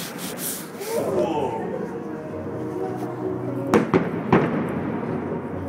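Two sharp firework bangs about half a second apart, a little past the middle, over a steady background of people's voices.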